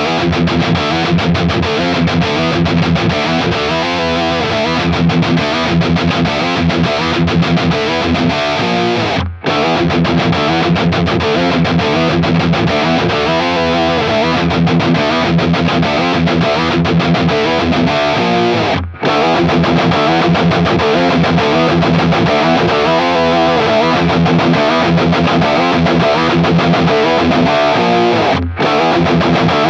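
Electric guitar with humbucker pickups playing the same overdriven riff through a tube amp head, in takes of about nine and a half seconds split by short breaks. The amp's master volume goes up from take to take, from 2 to 7. At the higher settings the tone turns more compressed, with the mids pushing forward and the lows choking, as the player hears it.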